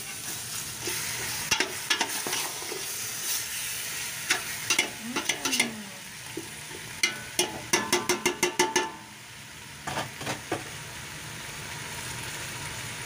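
Chicken pieces sizzling in a stainless steel pot as they are sautéed with lemongrass, with a metal utensil scraping and clacking against the pot as they are stirred. A quick run of clacks comes toward the middle. The stirring stops about three-quarters of the way through, leaving only the steady sizzle, while the chicken cooks until it gives off its own fat.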